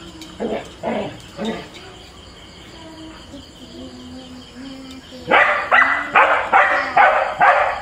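A husky and a border collie play-fighting, with a few short barks at first, then a quieter stretch. From about five seconds in comes a fast run of loud barks, about three a second.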